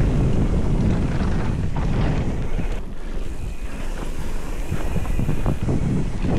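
Wind rushing over the microphone of a mountain bike riding fast downhill on a dirt trail, with a steady low rumble of the tyres and a few short knocks from the bike over the bumps.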